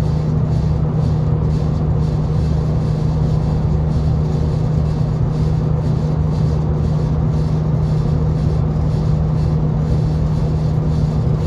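V/Line diesel train heard from inside the carriage as it moves along the station platform: a steady low engine drone over a constant rumble of running noise.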